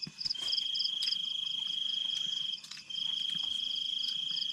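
Crickets trilling: a high, steady trill that stops briefly about every two and a half seconds and starts again, over a second, faster pulsing call just above it.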